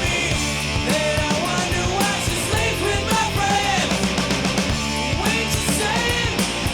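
Loud rock music with distorted guitars, a steady drum beat and a melodic lead line.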